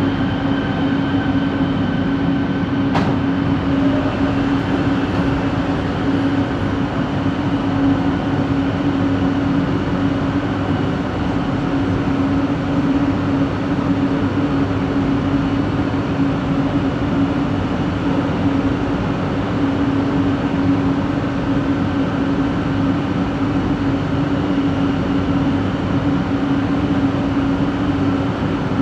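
Set 70's traction motor giving off a steady, unchanging hum at one fixed pitch over the rolling noise of the train: the unusual motor noise traced to coach 4. A single sharp click sounds about three seconds in.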